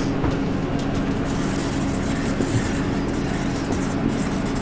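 Steady mechanical hum with an even low drone that holds unchanged throughout.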